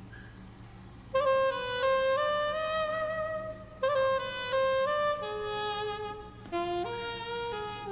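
Ringtone music: a single-line melody that enters about a second in and steps from note to note, with new phrases starting near four seconds and again near six and a half, over a faint steady low hum.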